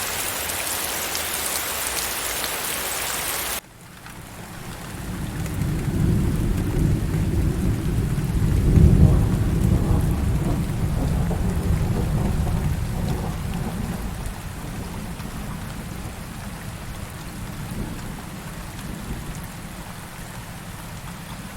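Heavy rain hissing that cuts off suddenly a few seconds in, giving way to softer rain. Under the softer rain a long, deep roll of thunder swells, peaks about nine seconds in, and slowly rumbles away.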